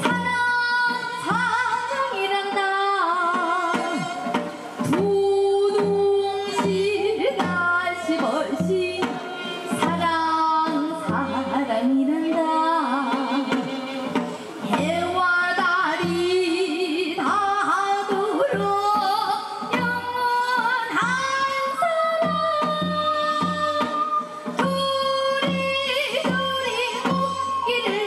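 A woman singing a melody with vibrato over a steady drum beat and instrumental accompaniment.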